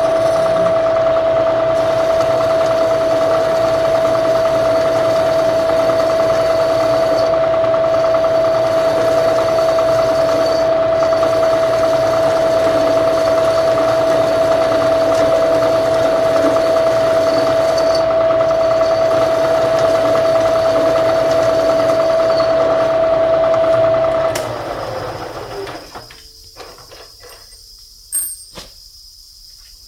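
Milling machine spindle running steadily with a high, even whine while a cutter works the part; about 24 seconds in the machine is switched off and the whine slides down in pitch as the spindle winds down, followed by a single click.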